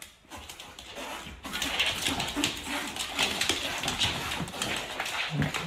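Two dogs, a golden-coloured dog and a husky, play together: scuffling and rustling with small dog vocal noises. It starts about a second and a half in after a near-quiet start.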